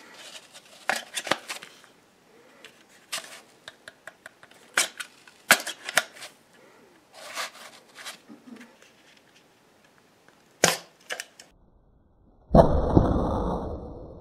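Scattered plastic clicks and rattles from a toy Easter egg shooter being handled. Near the end comes a sudden loud pop with a fading tail as the shooter fires its foam egg.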